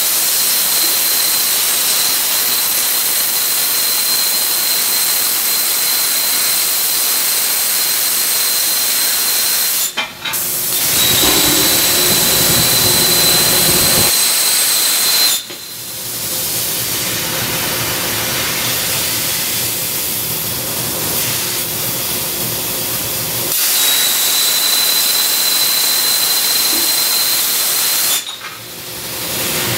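Hypertherm plasma torch on a robotic beam-coping machine cutting structural steel: a loud, steady hiss with a thin high whine over it. The sound dips briefly about ten seconds in, again about halfway, and near the end, and the whine drops out for a stretch in the middle while the hiss goes on.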